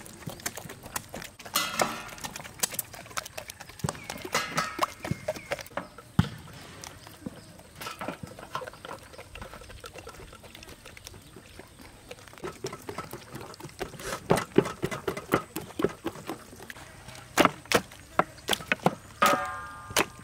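Hands handling raw whole chickens on wooden chopping blocks and a metal tray: irregular soft taps, knocks and wet slaps, busier in the second half.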